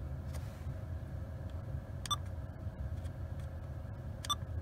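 Sony MEX-N5100BT car stereo giving two short electronic key beeps about two seconds apart as its source button is pressed to switch modes, over a low steady hum.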